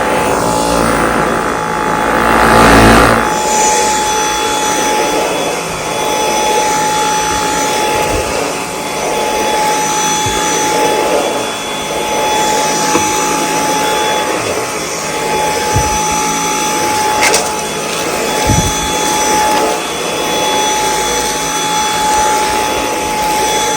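Dyson V8 Extra cordless stick vacuum running in its standard (non-max) power setting with the motorised floor head, a steady rushing airflow with a high, even whine. There are a few soft knocks as the head is pushed about. The sound shifts about three seconds in, when the whine settles onto one steady pitch.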